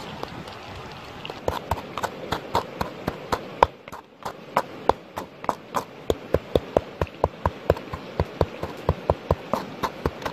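A pestle pounding chilies in a coconut-shell bowl: sharp, even knocks at about five a second, starting a second and a half in, with a brief pause about four seconds in.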